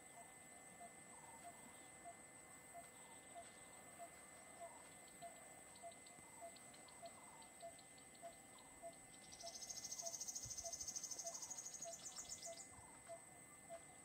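Insects and birds: a short call repeating about every half second over a steady high insect whine, with a louder pulsing insect trill for about three seconds past the middle.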